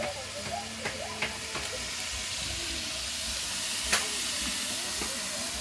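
Steady hiss of a large cooking pot steaming over an open wood fire, growing a little stronger partway through. A few sharp cracks sound over it, the loudest about four seconds in.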